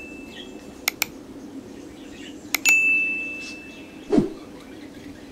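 Subscribe-button overlay sound effect: mouse clicks, then a bright bell ding that rings out and fades over about a second and a half. A short knock about four seconds in.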